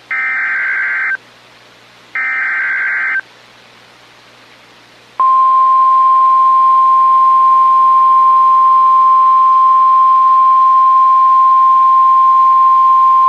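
Emergency Alert System SAME header on NOAA Weather Radio: two bursts of buzzy digital data tones, each about a second long and about a second apart. Then, about five seconds in, the steady 1050 Hz warning alarm tone starts, signalling that a warning message is about to be broadcast.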